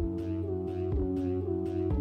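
Music with a steady beat: a low thud about once a second under held chords, with short hissing strokes in between.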